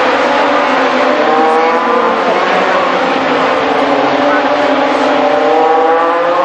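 MotoGP racing motorcycles passing on the circuit: a loud, steady engine noise in which several engine pitches slide down and climb back up as the bikes go by.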